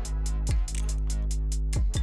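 Background music with a steady drum beat and a deep held bass.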